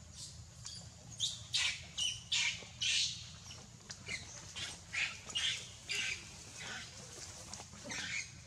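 Monkey calling in a rapid series of short, high squawks, about two a second, starting about a second in.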